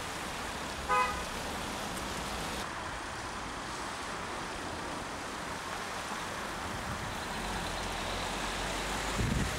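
A short car horn toot about a second in, over steady background traffic noise. Wind buffets the microphone with a low rumble near the end.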